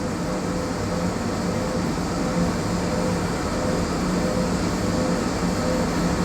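Machine tool running steadily during metal machining: an even mechanical hum with a low steady tone and a fainter higher tone that pulses regularly.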